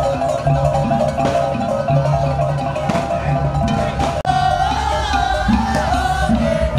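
Gamelan-style parade music: a fast, repeating metallophone pattern over steady drum strokes. About four seconds in, after a cut, a held, wavering melody line comes in over the drums.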